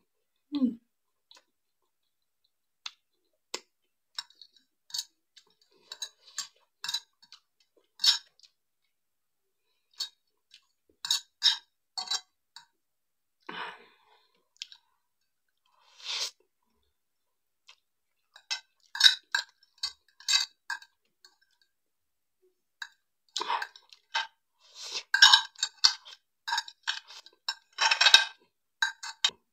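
Close-up mouth sounds of eating instant noodles: wet chewing clicks and smacks and short slurps, with now and then a metal fork scraping and clinking on a ceramic plate. The sounds come in scattered runs and grow denser and louder over the last few seconds.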